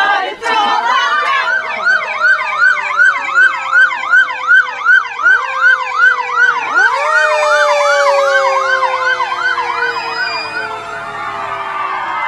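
Emergency vehicle sirens: an electronic yelp of quick rising-and-falling sweeps, about three a second, over a long steady tone that slowly falls in pitch. A fresh tone starts about seven seconds in, and the yelp slows and fades near the end.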